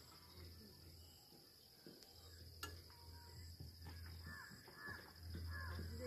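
Faint outdoor ambience: a steady high insect drone with short bird chirps and calls that come more often in the second half.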